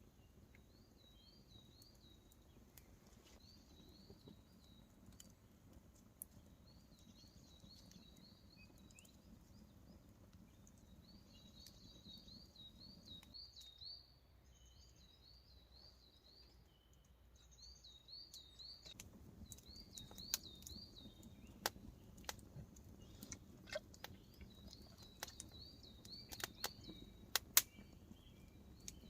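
A small songbird singing in the forest, repeating a short wavy trilled phrase every second or two, over a faint steady background hiss. In the second half, scattered sharp clicks and snaps join in.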